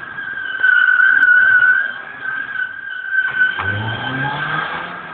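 BMW 2002's tires squealing on smooth concrete as the car slides through a turn, a wavering high squeal that is loudest in the first couple of seconds. About three and a half seconds in, its engine revs up under the squeal.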